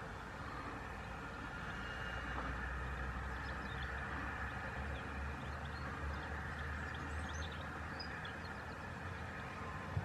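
Steady low rumble and hiss of distant traffic, with a few faint, high, short chirps of small birds around the middle and again near the end.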